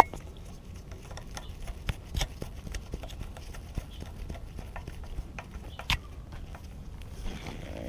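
A hand screwdriver turning a T25 screw into the aluminium tab that locks the A/C condenser to the intercooler: irregular small clicks and taps of tool and fastener on metal, with two louder knocks about two and six seconds in.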